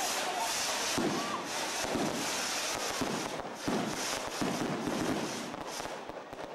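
Firework rockets going up with a continuous hissing crackle and a string of sharp bangs about a second apart, tailing off near the end.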